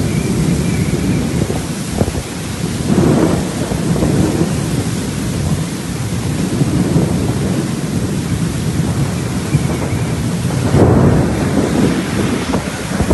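Heavy rainstorm with strong wind: a dense, continuous rush of rain and wind noise, heaviest in the deep range, surging louder about three seconds in and again near the end.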